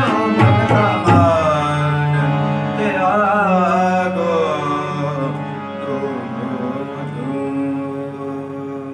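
Gurbani kirtan in Raag Gauri: a man's voice sings a closing ornamented phrase over a steady held drone, after the tabla's last strokes about a second in. The music gradually fades toward the end.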